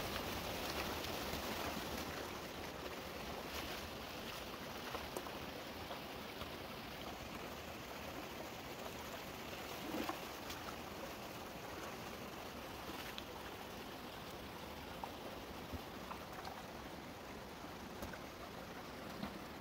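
Shallow rocky stream rushing over stones, with splashing of feet wading through the water, heaviest in the first couple of seconds, and a few sharp knocks.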